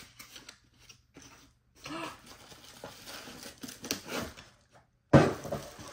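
A small cardboard box being opened and its contents handled: scattered scraping, rustling and clicks, with one sharp knock about five seconds in that is the loudest sound.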